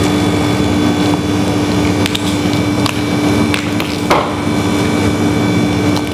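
Light knocks and clicks of a frozen gelato cake being worked out of its flexible mould, a few scattered handling sounds with the sharpest knock about four seconds in. Under them runs a steady machine hum.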